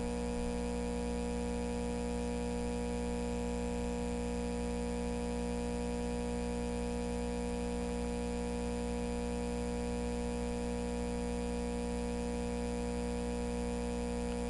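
Steady electrical hum made of several constant tones layered together, from the running transmitter equipment.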